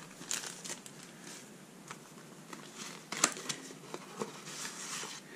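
Thin cardboard box being handled and opened by hand, with card and paper rustling and sliding and a few light taps and clicks. The sharpest click comes about three seconds in.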